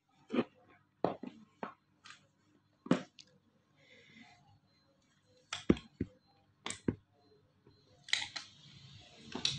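Cardboard smartphone box being handled: a string of sharp taps and knocks, then about two seconds before the end a longer scratchy scrape as a small tool works at the box's edge.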